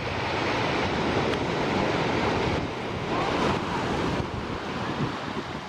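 Surf washing up the beach, with wind buffeting the microphone. It is loudest for the first four seconds or so, then eases.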